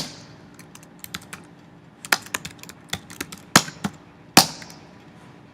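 Typing on a computer keyboard: irregular keystroke clicks, bunched in the middle, with two harder strikes, one right at the start and one about four and a half seconds in.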